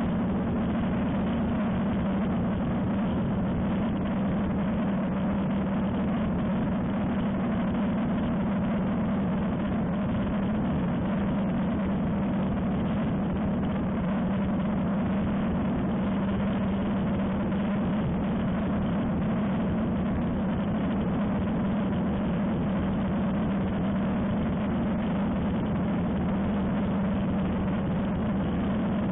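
Ultralight aircraft's engine and propeller droning steadily in flight, holding one unchanging pitch.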